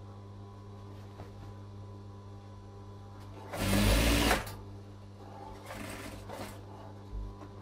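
Industrial sewing machine stitching in short runs: one loud run of about a second a little after the middle, then a shorter, softer one, over a steady low hum. The machinist is going slowly over a thick, bulky seam so the needle doesn't break.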